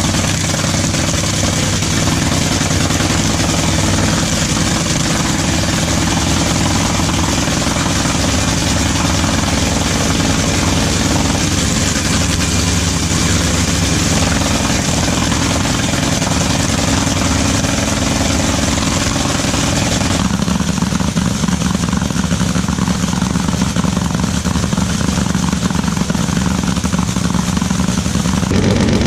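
Drag racing car engine idling steadily, with no revving; its tone changes abruptly about two-thirds of the way through.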